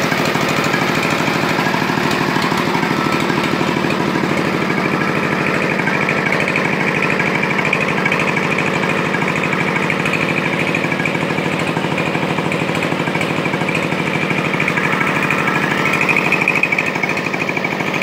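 Hitachi crawler excavator's diesel engine running steadily close by, with a fast, even chatter. It grows briefly louder near the end.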